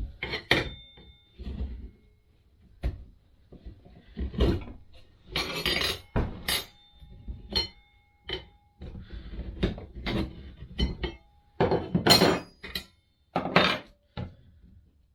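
Motion Pro tire spoons prying a motorcycle tire's bead off the wheel rim during dismounting: irregular metal clanks, clinks and scrapes, some with a short metallic ring.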